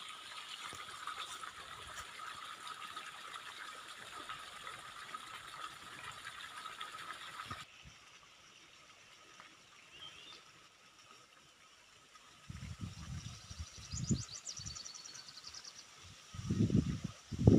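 Outdoor field ambience. A steady hiss gives way to a quieter stretch with a couple of short bird chirps and a high trill. From about two-thirds in, gusts of wind buffet the microphone as low rumbling surges that grow stronger near the end.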